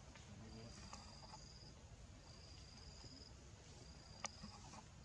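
Faint insect calling in high-pitched trills about a second long, repeated every couple of seconds, over a low background hum. A single sharp click about four seconds in.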